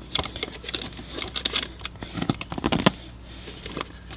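Irregular light clicks and knocks of a removed car blower fan motor's plastic housing being handled, with a cluster of louder knocks a little past halfway.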